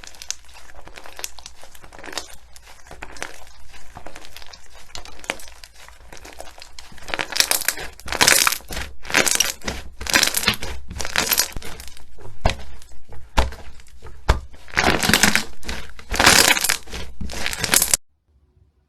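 Slime being worked by hand, giving dense crinkly crackling and squelching bursts that grow louder partway through and cut off suddenly near the end.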